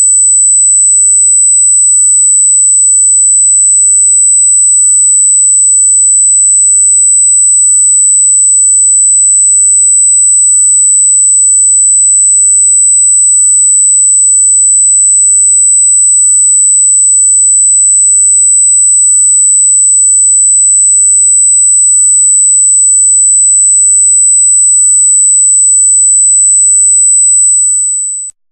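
Loud, steady, very high-pitched electronic sine tone: a single pure note held without change, cutting off just before the end.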